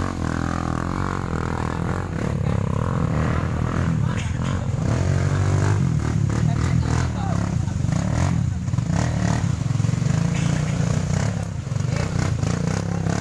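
Trail motorcycle engine running hard, its revs rising and falling, with scattered knocks and clatter.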